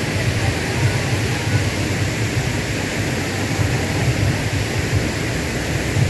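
Steady rushing of water flowing over the rocks of a forest stream, with a low rumble underneath.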